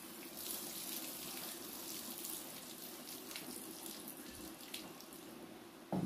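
Tap water running steadily into a kitchen sink, with a few faint clicks.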